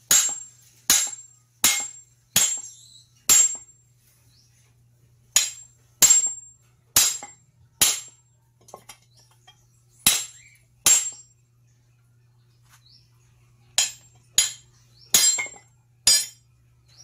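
A hammer striking metal in irregular groups of blows, each hit ringing sharply, about sixteen in all with pauses near four and twelve seconds in.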